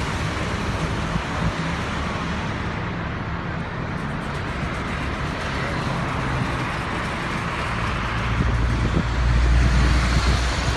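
Steady motor-vehicle rumble: a running engine and road traffic. The low rumble grows louder about eight seconds in.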